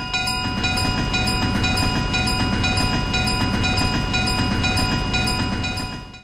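A passenger train passing at a railroad crossing, a steady low rumble, with the crossing bell dinging about twice a second over it. Both cut off suddenly near the end.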